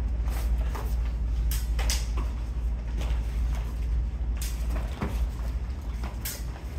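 Steel sparring swords, a saber and a side sword, striking each other: several sharp, separate clacks, over a steady low hum.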